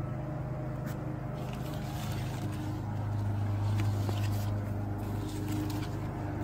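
Steady low drone of a running motor, with light rustling and a few soft clicks over it.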